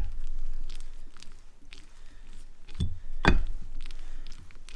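Handling noise from a tractor halfshaft hub and greased bearing on a steel bench: a few sharp knocks and clicks, the loudest about three seconds in, over a low steady hum.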